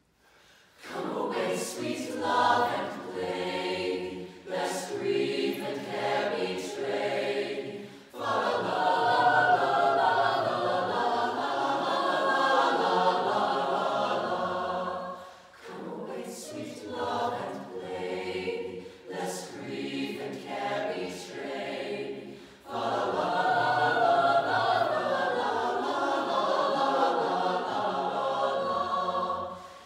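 Mixed choir of teenage voices singing a cappella, coming in about a second in and going on in phrases of a few seconds with brief breaks between them.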